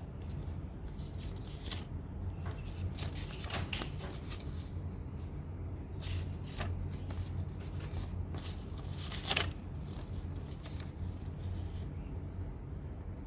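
Paper warranty card and manual being handled: intermittent rustling with a few light clicks and taps, over a steady low hum.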